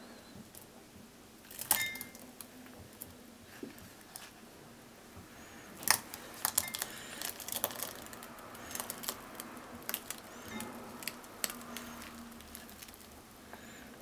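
Custard pudding mixture poured from a plastic bowl into a plastic mold, a soft wet pour with scattered sharp clicks and taps, the loudest about 2 and 6 seconds in.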